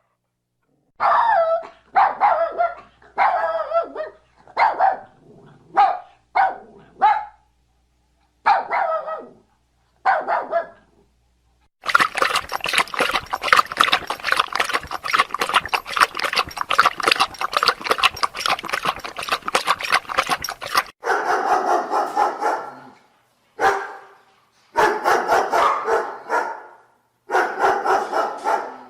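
Dog barking: a string of short separate barks, then a dense stretch of rapid, closely packed sounds lasting about nine seconds, then several longer calls of about a second each.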